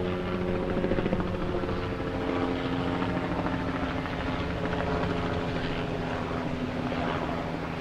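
Helicopter hovering: a steady, rapid rotor beat under a few held engine tones, at an even level throughout.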